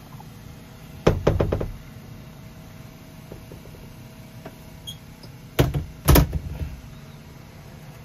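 Two clusters of knocks and rattles from the caravan shower cubicle's framed partition being handled: several quick strokes about a second in, and a louder group shortly after the five-second mark. A steady low hum runs beneath.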